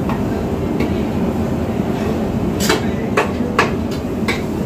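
Metal spatula stirring onions in a large pan, knocking sharply against the pan about four times in the second half, over a steady low background rumble.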